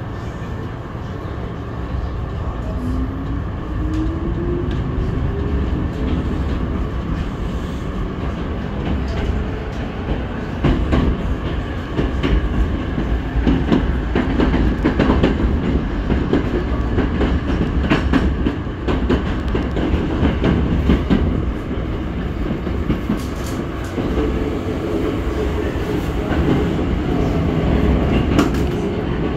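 Running sound inside a Hankyu 5300 series electric train car under way: a steady low rumble of wheels on rail. A faint whine rises in pitch a few seconds in, and repeated clicks of wheels over rail joints come through the middle.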